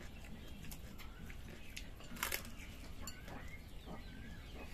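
Hands eating rice and curry off plates, with small clicks and one louder clatter about two seconds in, while birds chirp and cluck in the background.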